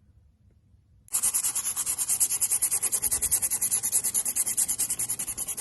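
Sandpaper rubbed by hand over an undercoated car body panel in rapid back-and-forth strokes, about nine a second, starting about a second in.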